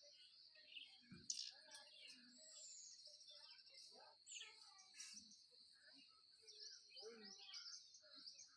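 Faint chirping of many birds, with short calls and a few sliding whistles over a steady high-pitched hum, and a single sharp knock about a second in.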